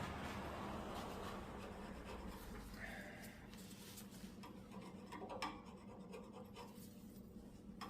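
Faint scratching and scrubbing strokes with small clicks, a toothbrush scrubbing grime off mower engine parts, thickening from about halfway in.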